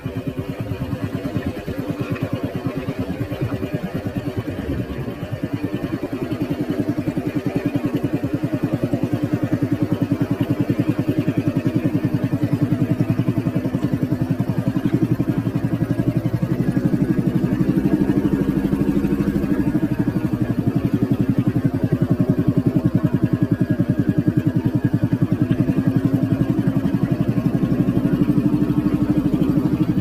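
Motorcycle engine running steadily while riding along a dirt track, with a rapid even firing beat. It gets a little louder about ten seconds in, and its pitch shifts slightly with speed.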